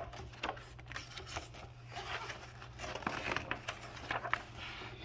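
Pages of a picture book being flipped by hand: paper rustling with many small crisp flicks.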